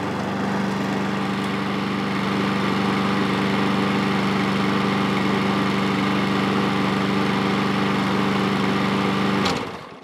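Webb petrol rotary lawnmower engine running at a steady speed, with no hunting or surging: its freshly cleaned carburettor is now fuelling it properly. The sound cuts off suddenly just before the end.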